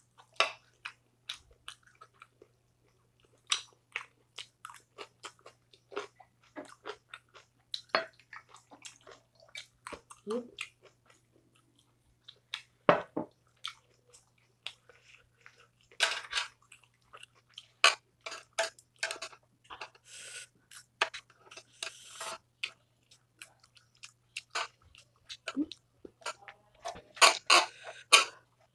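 Close-miked chewing of a mouthful of food: an uneven run of wet smacks, clicks and crunches. A steady low hum runs underneath.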